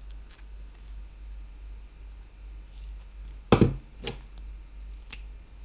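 The small scissors of a folding multitool snipping pieces from a vinyl sticker sheet, with the sheet handled between cuts. There are faint clicks early on, then two loud, sharp snips about three and a half seconds in and a smaller one a second later, over a steady low hum.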